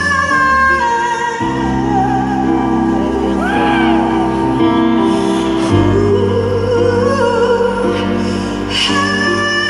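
Live rock concert in an arena, recorded from far back in the audience: female singers hold and bend long notes over a band's sustained chords.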